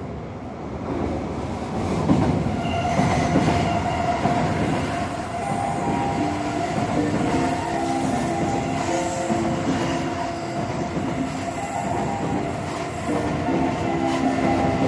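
Station platform noise beside a standing commuter train with its doors open, louder rail rumble in the first few seconds. From about six seconds in, a short electronic departure melody plays over it and repeats, signalling that the train is about to leave.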